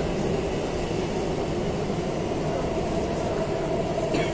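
Interior rumble of a C851E metro train running on the North-East Line, heard from inside the passenger car. A steady mid-pitched whine comes in about three seconds in over the rumble.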